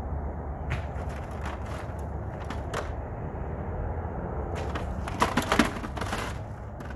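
Chunks of broken concrete knocking and scraping against each other in a wheelbarrow as they are moved by hand, with scattered clatters and a louder flurry about five seconds in.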